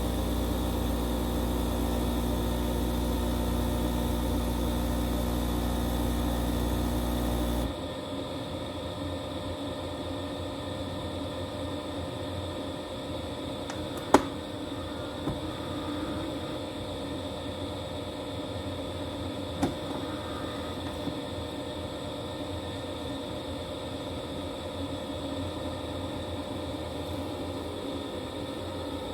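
Philips Series 2200 espresso machine running with a steady hum, cutting off abruptly about eight seconds in. It is followed by a quieter steady background with a sharp click about fourteen seconds in and a fainter one later.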